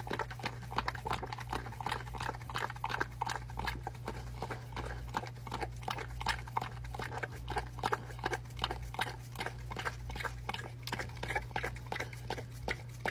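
Dog lapping whipped cream from a small paper pup cup: quick wet licks, about three or four a second, all through.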